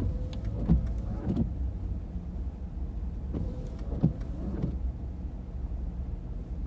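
Car cabin noise: a steady low engine rumble, with pairs of short knocks coming about every three seconds.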